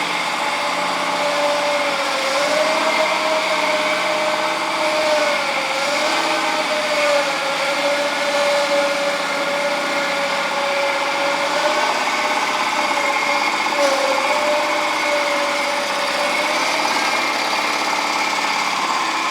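The 22 hp Kawasaki FD620D two-cylinder overhead-valve gas engine of a John Deere F911 front-mount mower running at a steady speed, its pitch dipping briefly a few times.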